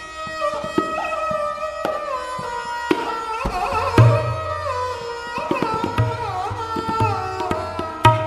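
Instrumental background music: a melody with sliding, bending notes over repeated deep hand-drum strokes.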